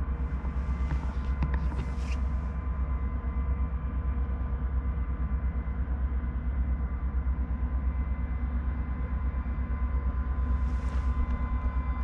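Diesel engines of a towboat pushing a barge upriver: a steady low rumble with a fast, even throb and faint steady tones above it. Brief rustles near the start and near the end.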